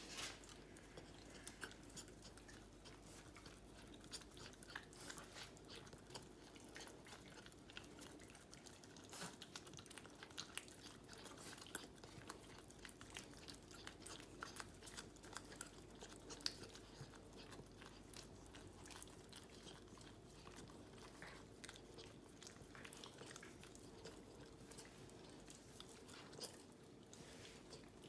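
West Highland White Terrier puppy licking and chewing food off a spoon: faint, irregular small smacking clicks.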